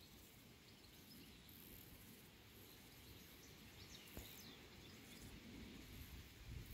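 Near silence: faint outdoor countryside ambience, with a few faint high chirps about four seconds in.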